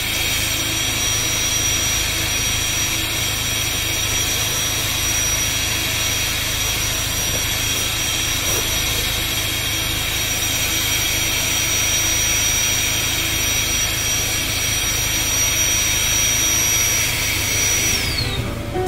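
Electric air pump running steadily with a high whine as it inflates an air-foam car-camping mat. Near the end it is switched off, and the whine drops in pitch as it winds down.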